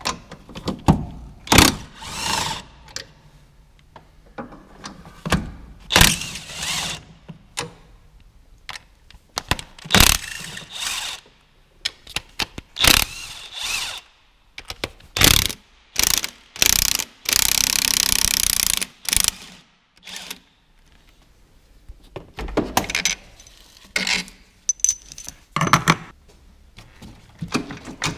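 Ratchet wrench on a long socket extension clicking in short irregular bursts, loosening and backing out the Torx T50 bolts of a diesel engine's engine-mount bracket. About two-thirds through comes one longer unbroken run of fast ratcheting lasting a couple of seconds.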